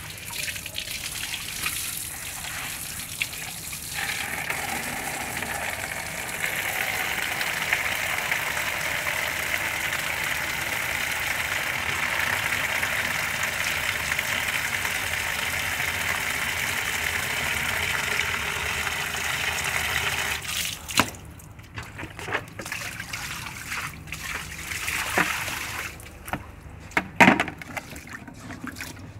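Water spraying from the end of a garden hose onto a tiled floor and into a plastic bucket, a steady gushing hiss that stops about two-thirds of the way through. After it, water dripping and trickling with a few light knocks.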